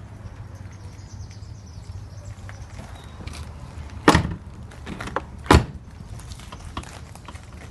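Car door of a Volkswagen Gol G5 shut twice: two loud thuds about a second and a half apart, over a faint low hum.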